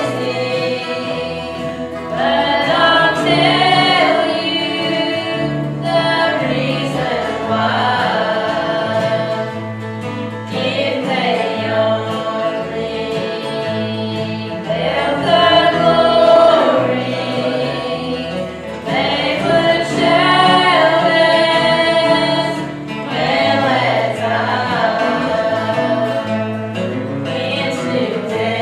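A gospel choir singing with instrumental accompaniment, sustained sung phrases over a steady bass line.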